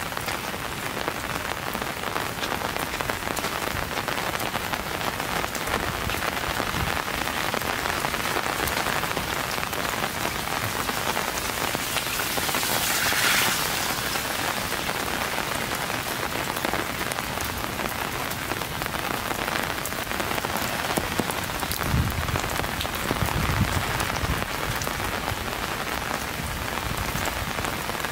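Steady rain falling, with a dense patter of close raindrops. A rushing hiss swells briefly about halfway through, and a low rumble comes in about three quarters of the way through.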